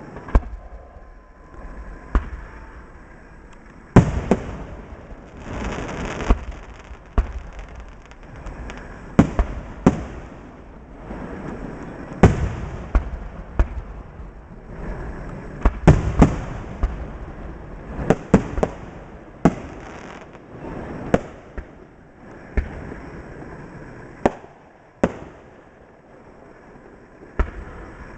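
Fireworks display: aerial shells bursting in an irregular run of sharp bangs, often less than a second apart, each followed by a short echo.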